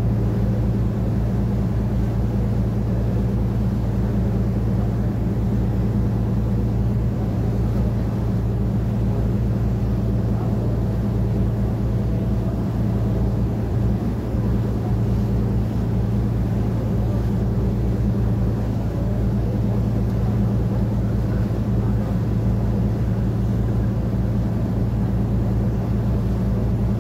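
Boat engine running with a steady low drone, heard on board, with water rushing past the hull.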